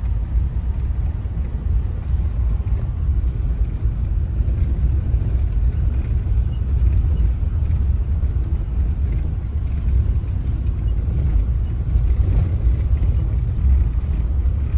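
Steady low rumble of a car moving slowly, engine and road noise heard from inside the cabin.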